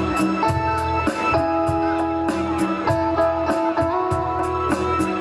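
Band playing an instrumental passage of a Thai rock song. Guitar holds long melodic notes over bass, with cymbal ticks keeping a steady beat of about three a second.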